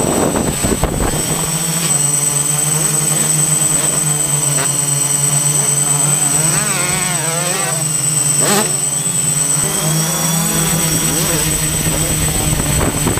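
Quadcopter drone's propellers humming steadily with a high-pitched whine. Motocross motorcycle engines rev up and down in the background, most clearly about six to eight seconds in.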